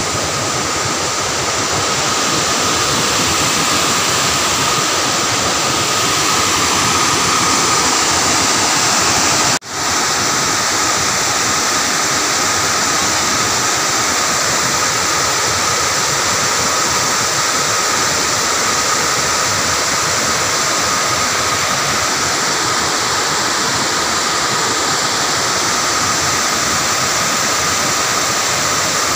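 Steady rush of falling water, broken once by a brief dip about ten seconds in. After the dip it is water spilling in sheets over the closed gates of a small dam into the pool below.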